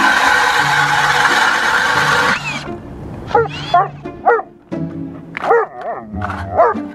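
REDVERG cordless drill spinning an ice auger through lake ice: a loud, steady grinding whir that stops about two and a half seconds in. After that a dog barks and whines several times over background music.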